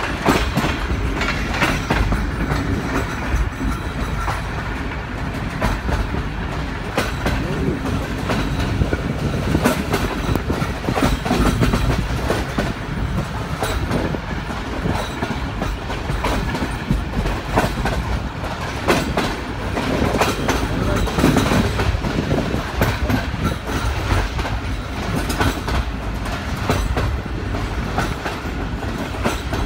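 Passenger train running along the track, heard from aboard: a steady rumble with wheels clattering and clicking over the rails.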